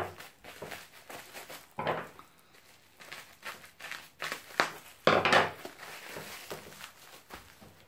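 Bubble wrap crinkling and rustling as it is handled and cut with scissors around a wrapped ceramic bonsai pot, in irregular bursts, the loudest about five seconds in.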